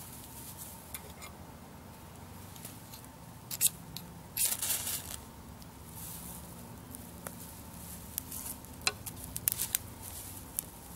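Dry grass tinder being handled and worked into a bundle, the stalks rustling and crackling in short bursts. Near the end come sharp scrapes of a striker on a fire steel, throwing sparks that catch the grass.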